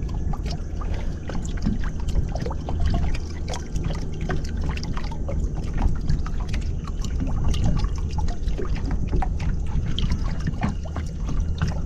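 Water sloshing and splashing against the side of a boat as a big redfish is held in it, with many small sharp splashes over a steady low rumble.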